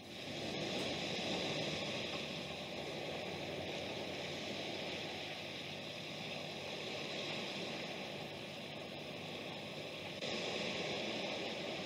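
Steady rushing noise with no distinct events, stepping up slightly in level about ten seconds in.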